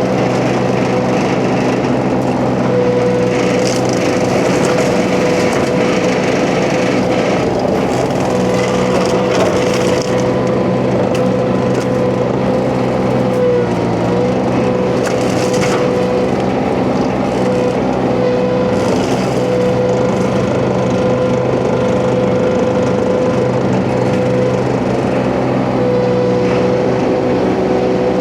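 Huayee LHY680 mini skid steer running steadily at full throttle with its hydraulic hammer-knife flail mulcher spinning, a steady whine over the engine, and several bursts of noise as the flail shreds brush and small wood.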